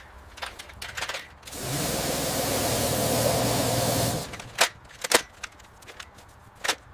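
A few sharp knocks and clatter. In the middle, a steady hiss with a low hum runs for about two and a half seconds, then more single sharp knocks follow.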